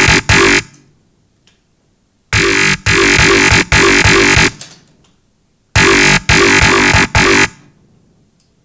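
Dubstep growl bass from a Native Instruments Massive synth patch, run through a phaser, playing a looped phrase. Each phrase is about two seconds of short, chopped growl notes, followed by a quiet gap, and the loop comes round twice.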